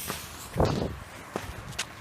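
Scattered firecracker bangs going off in the distance: three short, sharp cracks, the first about half a second in.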